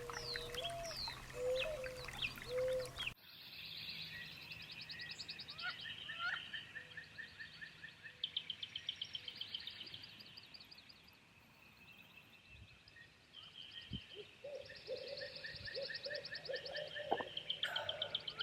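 Several wild birds calling and singing: quick falling chirps, then rapid repeated trills, some high and some lower. The sound changes abruptly about three seconds in.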